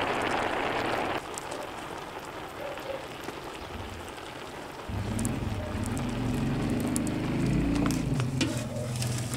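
A pot of rice and noodles boiling hard over a wood fire, an even bubbling hiss that drops off sharply about a second in. From about five seconds in, background music with low steady tones takes over.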